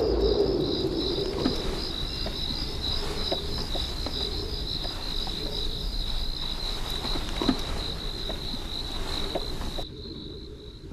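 Crickets chirping in a steady, fast-pulsing trill at two slightly different pitches. The higher-pitched one stops shortly before the end.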